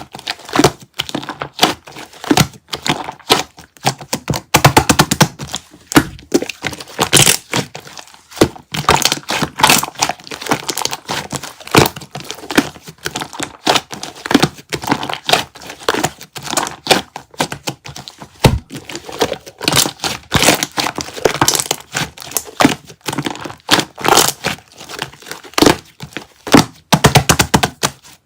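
Slime being squeezed, pressed and stretched by hand, giving a dense, irregular run of crackles and wet pops.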